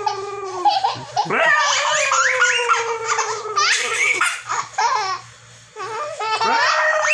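A toddler laughing and giggling in repeated bursts of belly laughs. The laughter drops away briefly a little before the end, then starts again.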